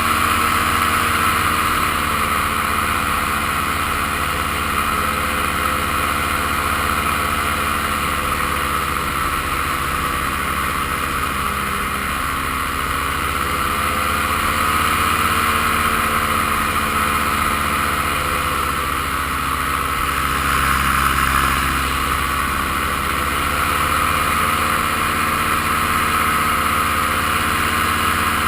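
Paramotor's two-stroke engine and propeller running steadily in powered flight, the engine note drifting slightly up and down with throttle.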